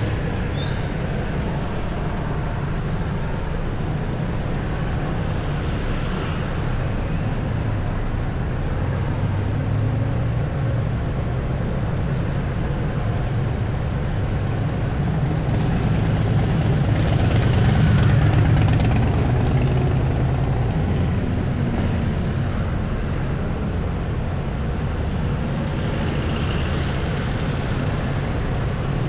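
City street traffic: a steady low engine rumble from motor vehicles, swelling as one passes close a little past halfway.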